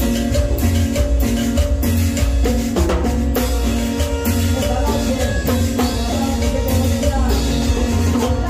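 Live Latin dance band music: drum kit and percussion keeping a steady beat over sustained bass and keyboard tones.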